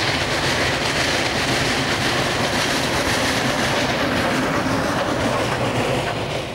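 Union Pacific Challenger 4-6-6-4 articulated steam locomotive passing close at speed with its long train, the steady loud noise of the engine giving way to wheels clattering over the rail joints as the cars roll by.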